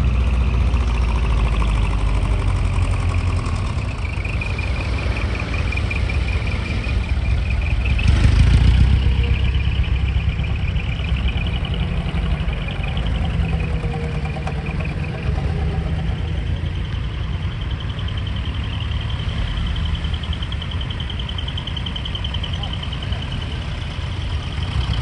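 Engines of decorated light trucks rolling slowly past at low revs, a steady low rumble that swells for a moment about eight seconds in as one passes close.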